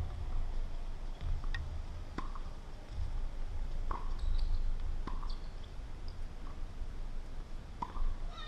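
Tennis balls being struck by rackets and bouncing on the court: half a dozen sharp, separate pops spaced irregularly through the rally, over a steady low rumble.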